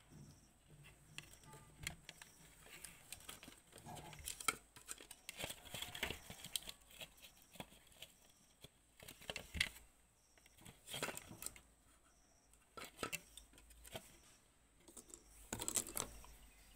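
Plastic appliance housing being handled and fitted together: faint, irregular clicks, knocks and short scraping rustles of hard plastic parts.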